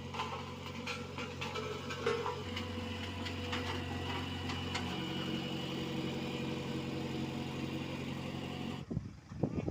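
Diesel engines of road-paving machinery running steadily, the engine note stepping to a new pitch twice, with scattered metallic clinks in the first few seconds. Near the end the higher noise cuts off abruptly and a lower swooping sound follows.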